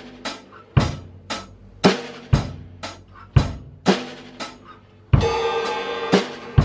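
A Tama drum kit played in a slow beat, bass drum and snare strokes about twice a second. About five seconds in, a crash cymbal is hit and rings on.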